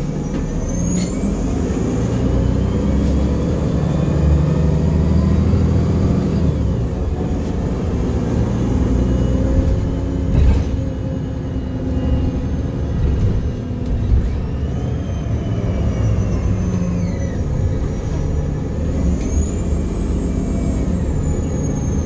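Interior of a moving city bus: engine and road rumble as the bus drives, the engine pitch rising and falling with speed. A knock about ten seconds in, and a high whine that rises and falls near the end.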